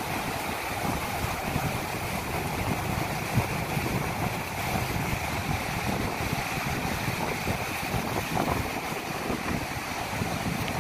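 Small sea waves breaking and washing up a sandy beach, with steady surf and wind buffeting the microphone as a low rumble. A single brief knock about three seconds in.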